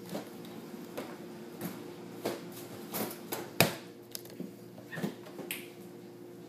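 Groceries being handled and put away: scattered light knocks, taps and clatter as items are picked up and set down, with one sharper knock about three and a half seconds in. A steady low hum runs underneath.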